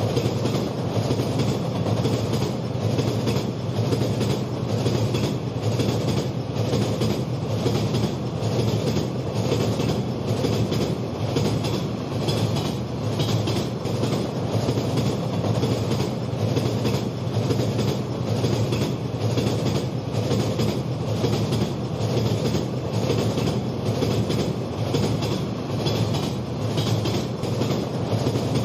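Model train of three-dome tank wagons rolling steadily over plastic track, with an even, rhythmic clickety-clack of the wheels over the rail joints and a steady low rumble.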